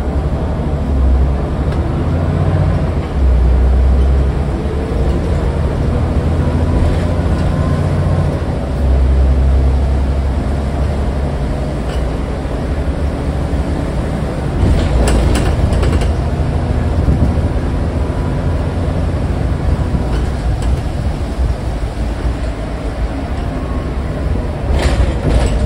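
Scania N94UD double-decker bus's five-cylinder diesel engine and drivetrain running under way, heard from inside the passenger saloon. There is a steady low rumble with a faint whine that rises and falls, and a few sharp clicks and rattles about halfway through and near the end.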